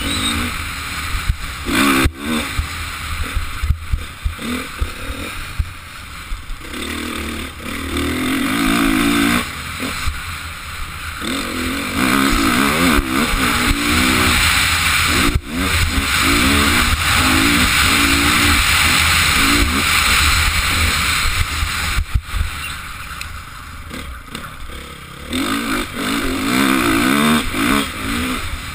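Honda motocross bike's engine heard onboard while riding, the revs climbing and dropping again and again as the throttle is opened and closed through the track's straights and turns, over a steady rushing hiss.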